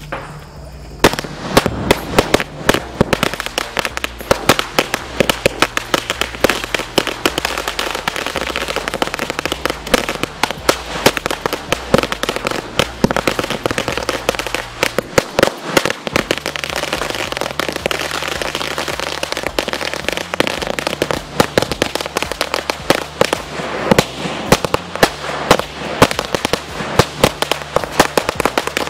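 A Jai Manoj 5000-wala firecracker chain (lari) going off: a dense, unbroken rattle of small bangs with louder cracks standing out, starting about a second in.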